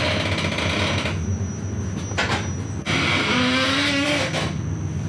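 Passenger train carriage running: a steady low rumble with a faint steady high whine, and a rushing hiss that swells and drops away twice. A short pitched drone sounds a little past the middle.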